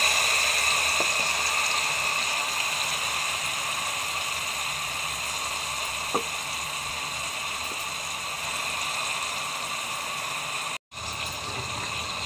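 Coarsely ground onion paste sizzling in hot oil in a pot, a steady hiss that slowly dies down. There is a brief break near the end.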